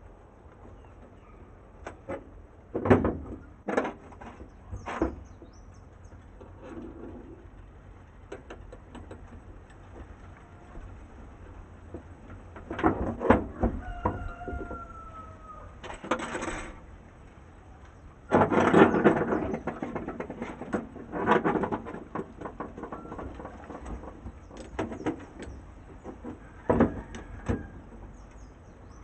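Scattered metallic clinks, knocks and short scraping rattles of hand tools and parts as an automotive starter motor is reassembled and its bolts are driven in.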